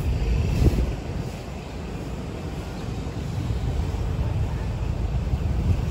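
Steady low rumble of wind on the microphone and vehicle road noise while riding along a street among motorbike traffic, with one brief thump under a second in.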